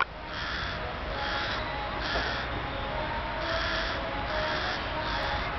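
A crow cawing repeatedly, harsh calls about once a second, over a faint steady low rumble.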